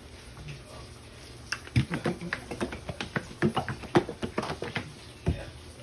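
A plastic ketchup squeeze bottle shaken hard, the ketchup knocking inside it in a quick run of clicks and thuds, about four or five a second, starting about a second and a half in. A single low thump follows near the end.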